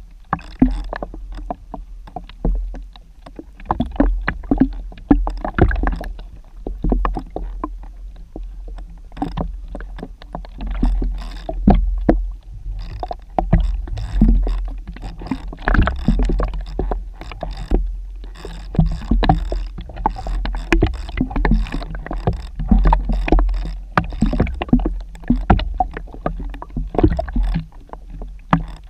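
Water movement heard through a submerged camera: a steady low rumble with irregular clicks and knocks throughout.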